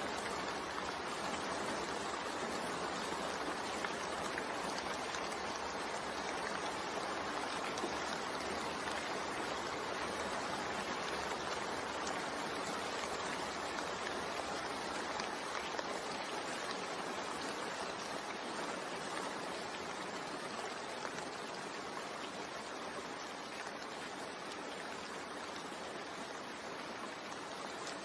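Steady rain, an even hiss of falling water with no distinct drops or breaks, growing slightly quieter towards the end.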